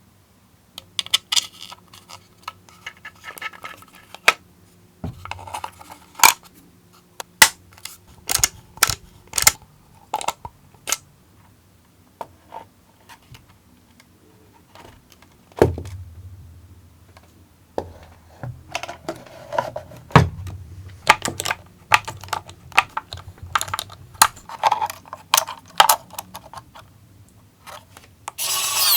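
Irregular clicks, taps and knocks of hard painted 3D-printed plastic parts being handled and fitted together during assembly, with short scrapes between them. Near the end a louder harsh noise starts.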